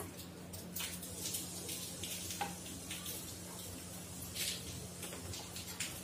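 Steady low hum and faint hiss of room noise, with a few faint scattered clicks and taps.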